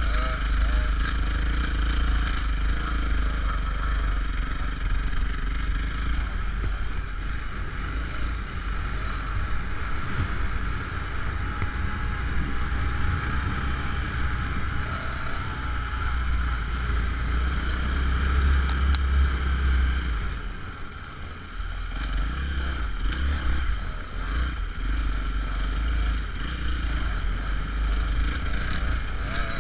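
Motocross dirt bike engine running under throttle, heard from a camera mounted on the bike, with heavy wind buffeting on the microphone. The sound dips briefly about two-thirds of the way through, then picks up again.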